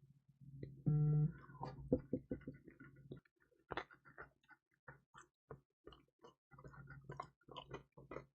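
Close-up chewing and crunching of crispy pizza: a run of irregular sharp crackles. About a second in there is a brief low pitched hum, the loudest moment, under a faint steady low hum.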